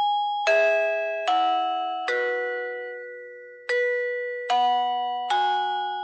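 SwannBuddy4K wireless doorbell chime playing one of its six selectable melodies in answer to the doorbell button press. Its bell-like electronic notes are each struck and then fade, in two four-note phrases with a pause of about a second and a half between them.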